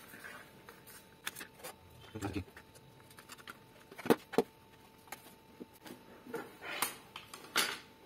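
A paper sheet and a plastic photo frame being handled on a desk: scattered light taps and clicks as the paper is pressed into the frame and the frame is lifted and set back down, the sharpest a pair of knocks about four seconds in.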